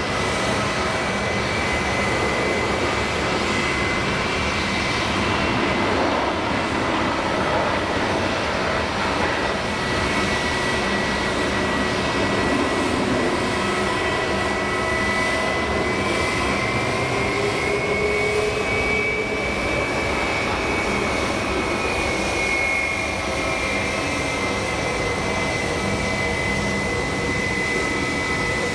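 Airbus A330-200's Rolls-Royce Trent 700 turbofans running as the airliner approaches and lands: a steady jet rumble with a high whine that rises slightly in pitch past the middle, then settles back.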